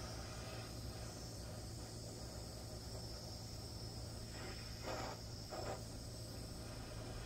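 Small handheld butane torch burning steadily, a thin high hiss as its flame scorches the edges of carved lettering in pine. A low steady hum runs underneath, and a few brief soft scuffs come a little past the middle.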